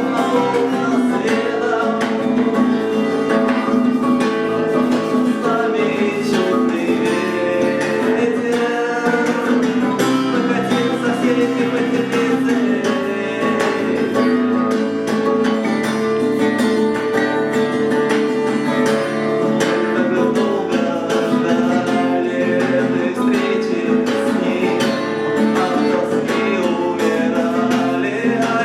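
Music led by an acoustic guitar, playing steadily with no breaks.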